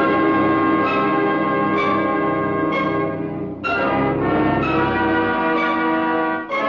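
A peal of bells, with strokes about once a second and long ringing tones that overlap, then a pause of nearly three seconds before the next stroke.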